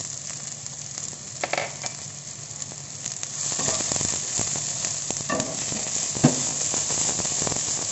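Sliced leeks sizzling in hot oil in a nonstick frying pan, with a spatula scraping and stirring them now and then. The sizzle grows louder about halfway through.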